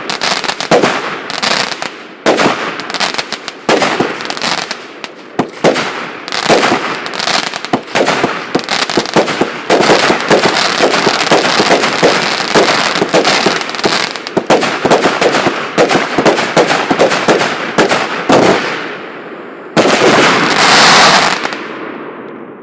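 148-shot firework cake battery firing: a rapid run of launch bangs and bursts, densest in the middle and thinning out around 18 seconds in. After a short pause, a loud rushing noise lasts about two seconds and fades out.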